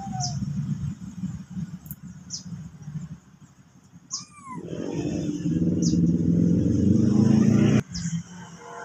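A motor vehicle engine running, with a low rumble that fades, then swells louder for a few seconds and cuts off abruptly near the end. Short high chirps repeat about every second and a half over it.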